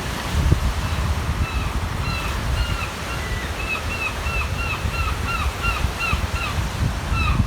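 A gull calling in a rapid run of short, repeated calls, about three a second, over a steady low rush of wind and waves on the shore.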